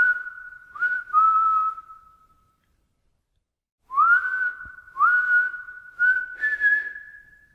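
Someone whistling a short tune, each note sliding up into pitch and then held. There are two phrases with a pause of about a second and a half between them, and the second ends on a higher held note.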